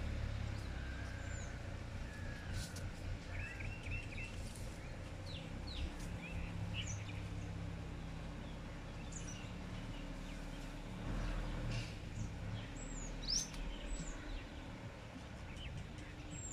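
Scattered short bird chirps and calls over a steady low background hum.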